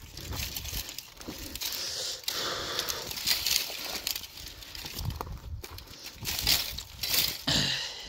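Dry twigs and brushwood rustling and crackling as someone pushes through dry scrub, with scattered sharper snaps of small branches.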